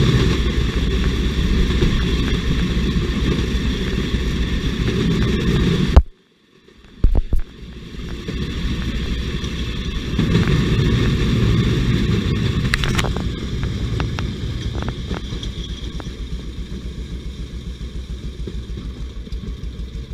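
Motor jigger's engine running steadily as the rail trolley travels along the track. The sound cuts out abruptly about six seconds in, with a couple of sharp clicks, then the engine returns and gradually grows quieter toward the end.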